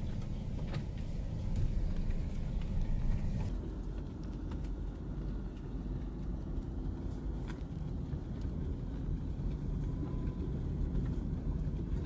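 Car driving slowly on a rough road, heard from inside the cabin: a steady low engine and tyre rumble with a few brief knocks and rattles.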